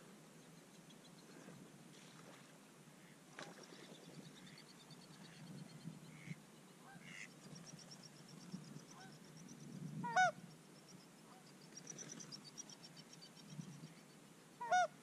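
Single loud goose honks, one about ten seconds in and another near the end, with faint quick chattering calls of distant waterfowl in between.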